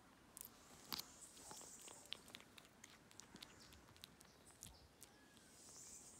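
Near silence with scattered faint clicks and smacks, the sharpest about a second in: a kitten chewing small pieces of fresh chicken offered from tweezers.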